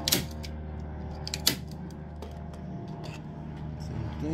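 Manual staple gun firing twice, about a second and a half apart, driving staples into the wooden subwoofer box, followed by a few lighter clicks. A steady low hum runs underneath.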